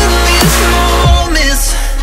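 Electronic background music with a heavy bass note that slides down in pitch about every two-thirds of a second. The deepest bass drops out a little past halfway.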